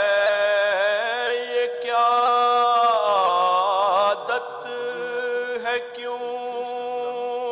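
A man's solo voice chanting an Urdu nazm, drawing out one syllable of the verse into a long held melody that wavers and dips in pitch. The voice is a little softer after about four seconds.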